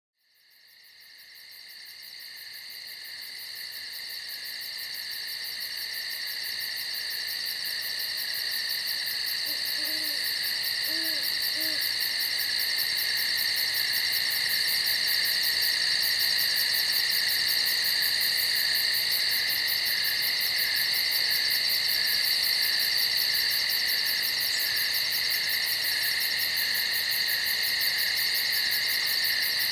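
Night insect chorus, a steady high-pitched pulsing trill, fading in from silence over the first dozen seconds and then holding steady. About ten seconds in, an owl gives three short, faint low hoots beneath it.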